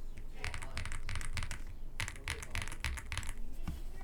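Stock Aula F75 mechanical keyboard being typed on: quick runs of keystroke clicks in two bursts with a short pause between them, thinning out near the end.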